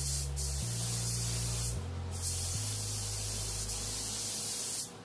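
Gravity-feed paint spray gun hissing as it sprays paint onto a truck tailgate. The hiss breaks off briefly twice and stops just before the end.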